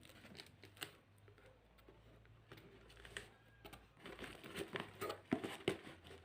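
Faint scattered light clicks and rustling, as of small objects being handled, growing busier about two-thirds of the way in.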